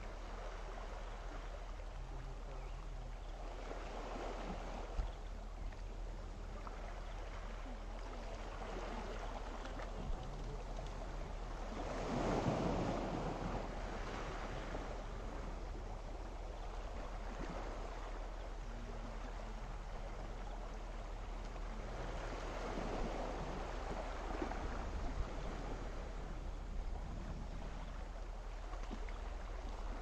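Small sea waves washing onto the shore, the sound swelling and easing several times, with the biggest surge a little before the middle.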